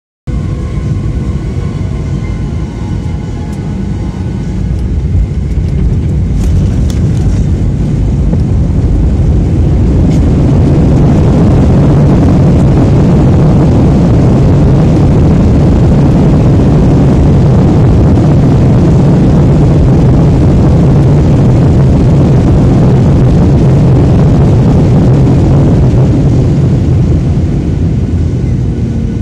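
Jet airliner's turbofan engines and airframe heard inside the cabin during the landing roll. A loud, deep rush builds over the first ten seconds or so, holds, then eases off near the end, the pattern of reverse thrust being applied and then taken off as the aircraft slows.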